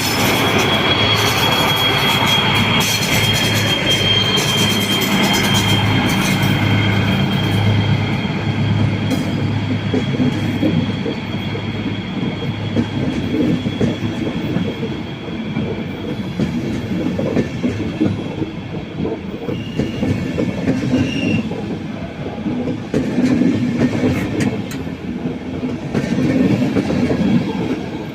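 A train rolling along the track, its wheels clattering over the rails, with a high wheel squeal that sinks slightly in pitch and fades out over the first several seconds.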